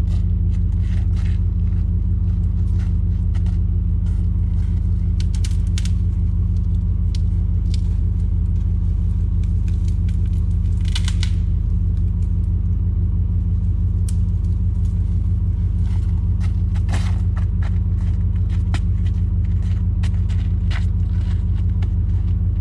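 Idling engine of a 1993 Chevy 3/4-ton pickup sand truck, a steady low rumble, with scattered light clicks and taps over it.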